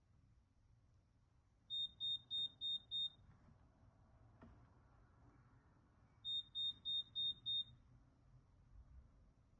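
Electronic beeper of an AIRMSEN countertop mini dishwasher sounding two rounds of five short, high, evenly spaced beeps, the second round about three seconds after the first, over a faint low hum.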